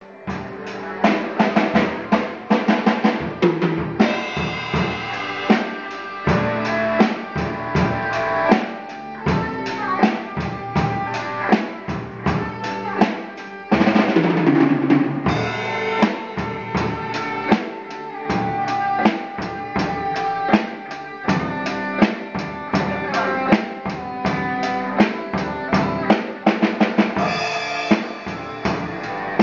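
A drummer playing a TAMA drum kit together with an electric guitar through an amplifier: a steady rock beat with fills, and a run of rapid hits in the first few seconds, under the guitar's held notes and chords.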